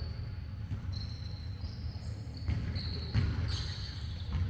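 Basketball game play on a gym floor: sneakers squeaking several times in short high chirps, with a few thuds of the ball bouncing, the loudest about three seconds in.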